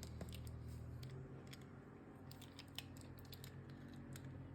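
Faint, scattered small clicks and scrapes of Torx drivers working the body screws loose on a titanium balisong handle, over a low steady hum.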